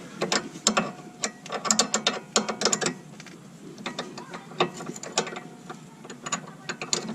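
Hand ratchet wrench clicking in short bursts of rapid clicks with pauses between, as it is swung back and forth on a sway bar end link nut.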